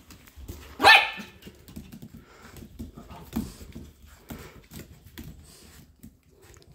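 A small puppy barks: one loud, short bark about a second in, then a softer one a couple of seconds later.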